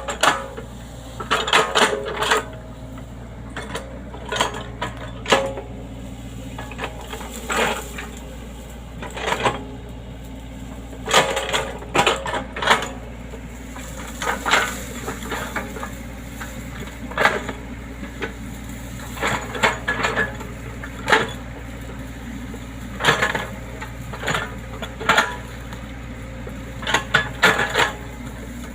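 Excavator working: its engine runs steadily while irregular sharp metallic clanks and knocks, typical of the bucket, pins and tracks, come every second or two.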